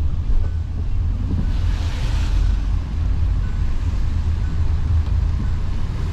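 Steady low rumble of a car driving, with a brief rise in higher-pitched road or air noise about two seconds in.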